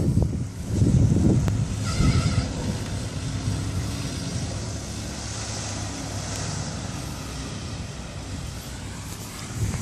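Nissan Patrol Y60's TD42 4.2-litre straight-six diesel running steadily at low revs as the truck drives down and away across open ground. Two loud low rumbles come in the first second and a half, and a brief higher tone sounds about two seconds in.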